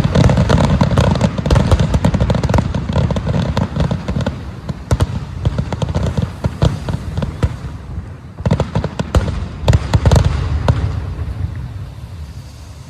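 Fireworks going off in rapid succession: dense booms and crackling bangs, a brief lull, then a second tight volley, after which the bangs thin out and fade.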